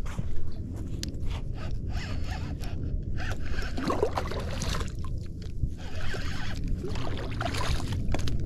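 Spinning reel being cranked in repeated bursts, its gears giving a rasping whir as line is brought in against a hooked fish on a bent rod.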